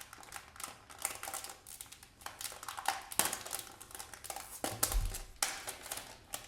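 Handling noise of a nylon-braided Lightning cable being moved about: irregular small clicks, taps and rustles, with a low thump about five seconds in.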